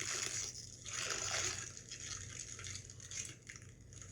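Crinkly plastic snack bag of Cheetos Puffs rustling and crackling irregularly as it is handled and opened, over a faint steady hum.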